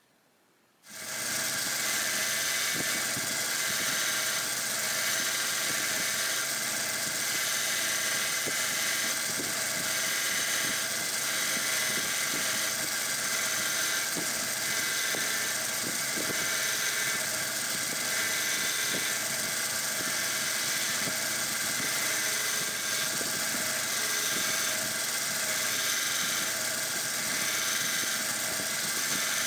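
Belt sander fitted with a medium surface-conditioning belt starts up about a second in and runs steadily with a high whine and hiss, smoothing and blending a brass tool handle.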